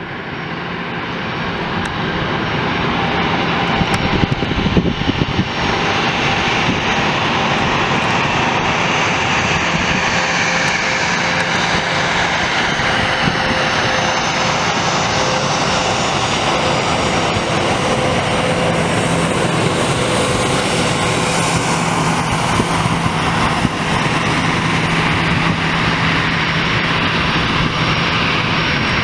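Airbus A320's twin jet engines heard through landing approach and runway rollout: a loud, steady rushing sound with a faint steady whine, swelling over the first few seconds.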